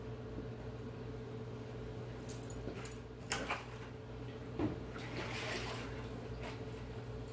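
Steady low hum with a few light knocks and clicks scattered through, and a soft brief hiss about five seconds in.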